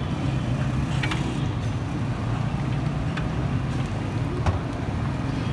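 French fries frying in a basket in a deep fryer, the oil bubbling and sizzling over a steady low mechanical hum, with a few faint clicks.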